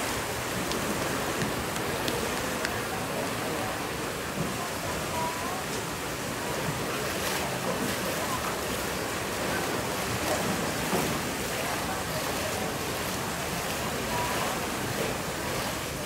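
Fast, turbulent water rushing and churning through a concrete dam channel, a steady even noise.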